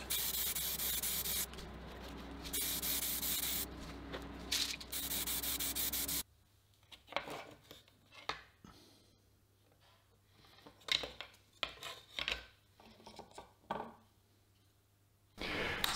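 Aerosol spray can hissing in a few bursts with short breaks. About six seconds in it stops, and there are faint scattered clicks and taps of plastic cover plates being handled on a wooden board.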